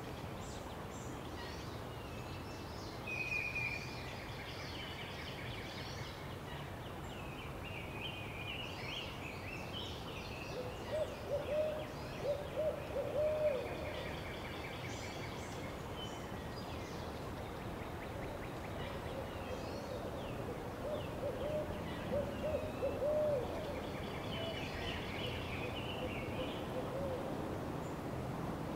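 Wild birds calling: scattered high chirps and song phrases over steady background noise, with a low hooting phrase of several notes that comes twice, near the middle and again about two-thirds of the way through.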